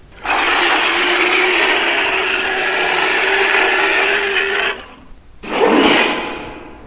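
A long, raspy werewolf growl of about four and a half seconds, then a shorter growl a little later that fades away.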